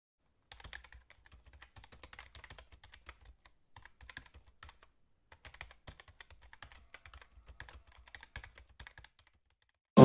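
Computer keyboard typing: a run of faint, quick, uneven key clicks, with short pauses about three and a half and five seconds in, stopping about a second before the end.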